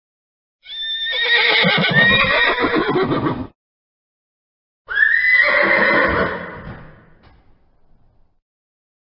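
A horse whinnying twice: a call of about three seconds, then after a short silence a second call that fades away to quiet.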